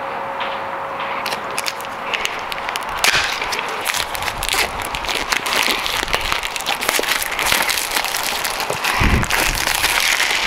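Clear plastic shrink wrap being torn and crumpled off a cardboard box: a dense run of crinkling crackles and small snaps, starting about a second in and getting busier after a few seconds.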